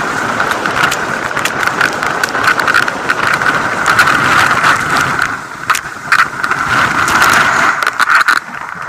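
Skis sliding fast over packed snow with wind rushing across the low-mounted camera's microphone, and sharp clicks and knocks throughout. The rush drops off twice in the last few seconds as the skier slows to a stop.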